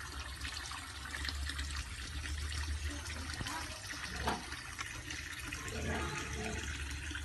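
Steady splashing of a stream of water pouring into a fish pond.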